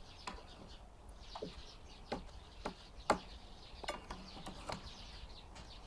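Metal spoon clicking and scraping against a stainless steel baking pan while scooping out cheese-topped meat ragout: a series of faint, irregular clicks.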